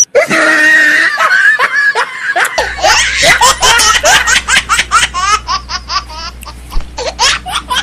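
Dubbed laughter: a fast run of short, high-pitched giggling bursts, a few each second, growing denser from about two and a half seconds in.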